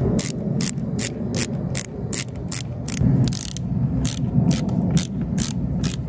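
Ratcheting hand screwdriver clicking as a screw is driven into an RV door lock's mounting plate, an even click about three times a second.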